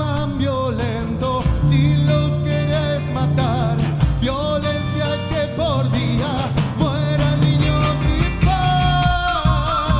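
Live rock band music: a man singing over electric guitar, bass and percussion.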